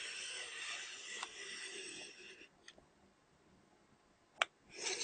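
X-Rite i1Pro 2 handheld spectrophotometer slid along its ruler across a strip of printed colour patches: a scraping hiss for about two and a half seconds, then a click. Another click comes near the end, and the scraping starts again as the next strip is scanned.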